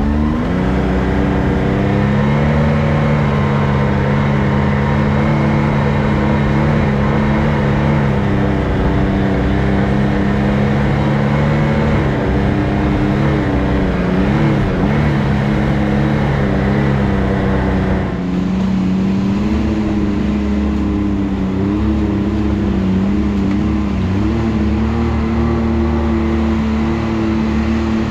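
Can-Am Maverick X3 side-by-side's three-cylinder turbo engine pulling away, its pitch climbing at the start, then running at a steady trail speed with small rises and dips as the throttle changes. The tone changes abruptly about 18 seconds in.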